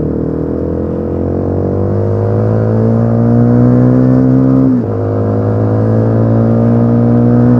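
Motorcycle engine roaring under hard acceleration, heard from the rider's seat. Its pitch climbs steadily, drops briefly for an upshift about five seconds in, then climbs again in the next gear.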